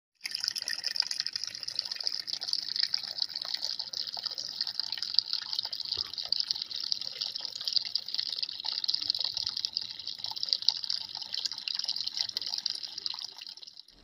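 Water of a small tabletop rock fountain falling and splashing steadily into its pool, then fading out near the end.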